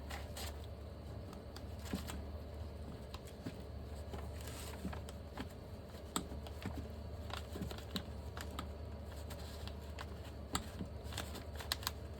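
Scattered light metallic clicks and taps of hand tools working a brake caliper piston into its tight bore, over a low steady hum.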